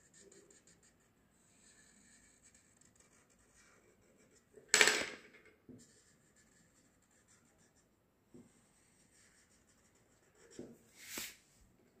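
Marker pen drawing on paper: faint, repeated scratchy strokes. A brief, much louder handling noise comes about five seconds in, and two smaller ones near the end.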